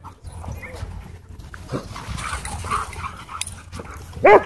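Dogs play-fighting at a run, with scuffling noise and one loud, short bark near the end.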